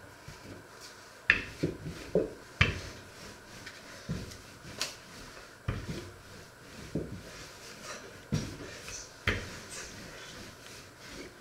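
Wooden rolling pin and hands working a sheet of dough on a floured wooden worktop: a string of irregular knocks and soft thuds as the pin is set down and pushed across the board.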